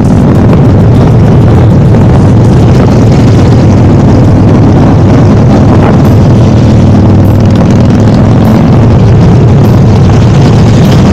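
Harley-Davidson motorcycle engine running steadily under way, loud, with road and wind noise mixed in.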